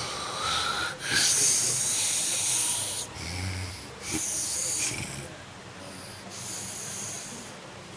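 A man snoring loudly in his sleep: a long, airy, hissing breath begins about a second in and lasts some two seconds, followed by shorter snores with a low rumble. The last one, near the end, is fainter.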